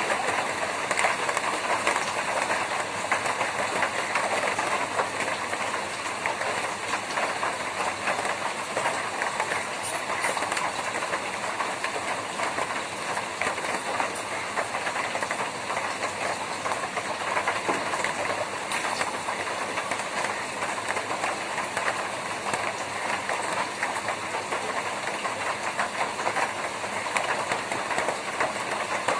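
Rain falling steadily on a tin roof: a dense, even patter of countless small drop impacts on the metal sheets.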